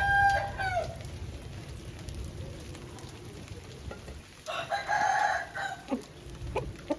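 Aseel roosters crowing: one crow's held, level note ends with a drop just under a second in, and a second, rougher crow comes about four and a half seconds in, lasting about a second.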